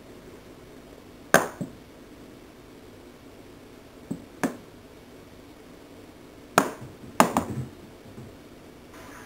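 A small toy mouse on a string tapping and bouncing on wooden stair treads: sharp knocks in pairs, about a second and a half in and again around four seconds, then a quicker cluster of knocks around seven seconds.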